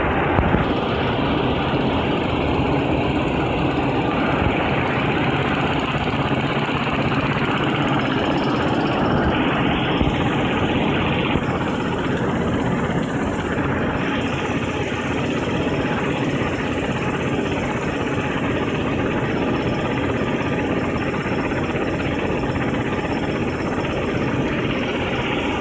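Pet-food production line running: a steady, continuous machine drone from the conveyors and processing equipment, with no single sound standing out.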